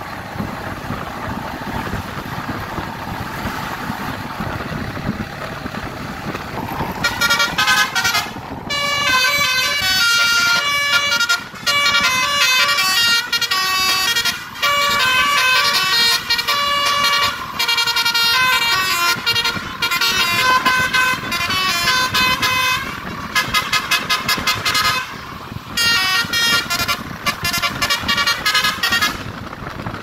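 Basuri telolet horn on a tour bus playing a fast melodic tune of quickly changing notes, starting about seven seconds in and stopping briefly a few times. Before the tune, the low running of the bus engine and road noise.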